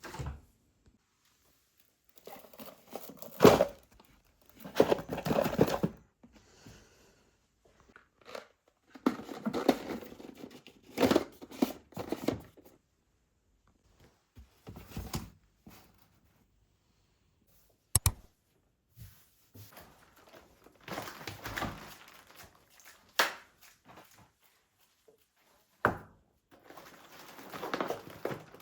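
Packaging being handled at close range: crinkling, rustling and tearing in irregular bursts, with a few sharp clicks of things being put down.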